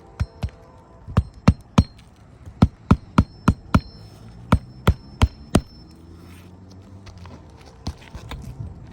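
Hammer driving roofing nails into asphalt shingles: about fourteen sharp strikes in quick runs of two to five blows, then a few softer knocks near the end.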